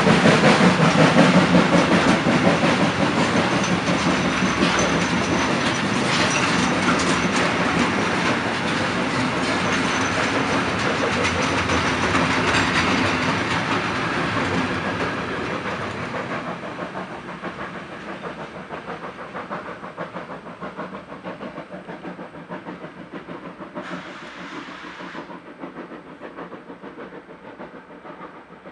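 Gravel hopper wagons of a freight train rolling past, wheels running on the rails. The noise fades away about halfway through as the last wagon passes, leaving a faint distant rumble, with a brief hiss about four seconds before the end.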